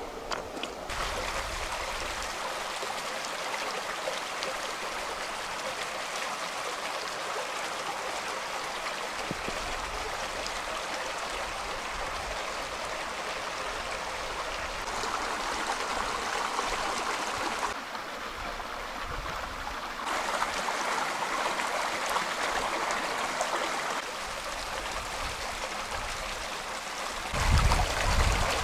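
Shallow rocky stream running over stones: a steady rush of water that shifts up and down in level a few times. A low rumble comes in near the end.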